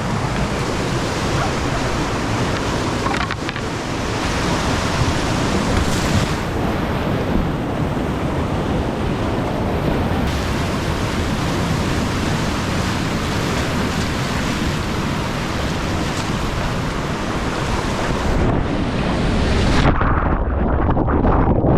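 Steady roar of a 10-metre waterfall and rushing whitewater. Near the end the sound turns duller as the high hiss drops away.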